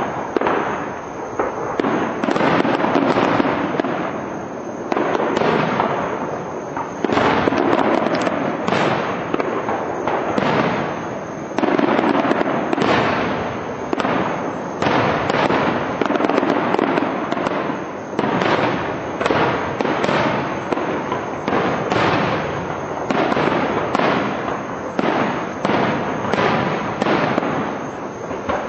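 Aerial firework shells bursting in a rapid, continuous barrage, one bang after another with no pause.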